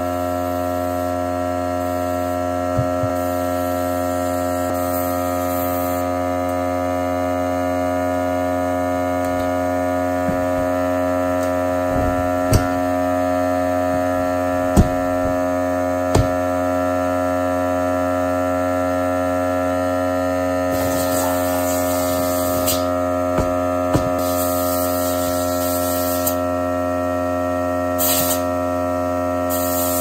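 A steady electrical-sounding hum made of many constant tones, with a few short knocks in the middle and bursts of hiss in the second half.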